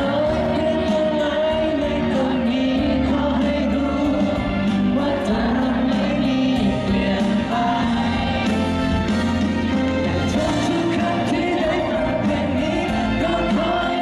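A song: a lead vocalist singing held, wavering notes over steady instrumental backing.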